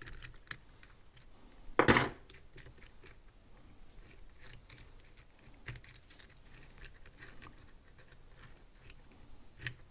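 Small metal parts being handled: light clinks and clicks, with one louder metallic clank about two seconds in that rings briefly.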